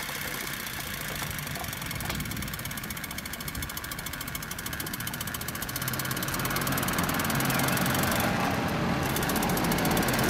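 Miniature live-steam traction engine (1-inch-scale Minnie) running fast under load, a very rapid steady beat of exhaust and mechanism with steam hiss as it hauls a heavy air compressor on a trolley. It gets louder from about halfway through.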